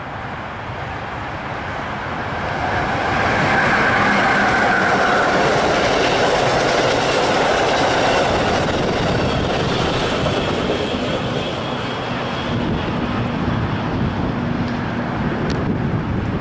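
Amtrak electric passenger train (ACS-64 locomotive and Amfleet coaches) passing at speed. The rush of its wheels on the rails builds and peaks about three seconds in. It holds loud while the coaches go by, then eases a little as the train draws away.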